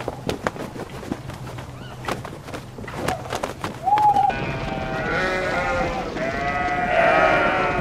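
A large flock of sheep bleating, many voices overlapping, starting about four seconds in and growing denser. Before that come scattered sharp clicks and one short high call.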